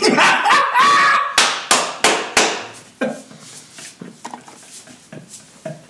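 Close-up crunching of deep-fried breaded seafood being bitten and chewed: several loud crisp crunches between about a second and a half and two and a half seconds in, then softer chewing clicks. A brief voice-like sound comes near the start.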